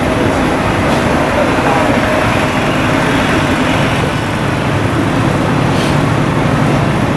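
A vehicle engine running steadily, with a dense even rumble and faint murmuring voices under it.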